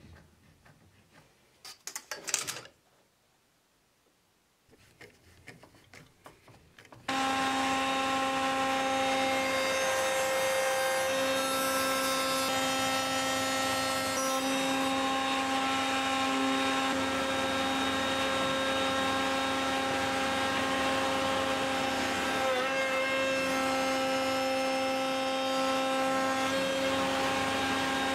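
A few light knocks and handling sounds, then about seven seconds in an electric power tool switches on abruptly and runs at a steady speed with an even whine.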